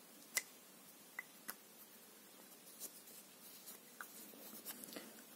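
Faint, scattered clicks and taps from a small object handled close to the microphone, with the sharpest click about half a second in.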